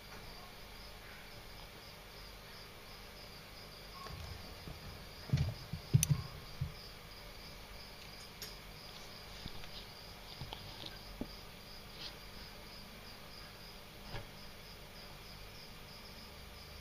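A cricket chirping steadily in quick, even pulses, with a few dull knocks and bumps about five to seven seconds in.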